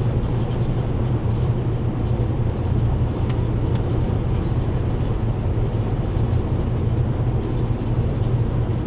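Steady low road and engine rumble inside the cabin of a moving vehicle.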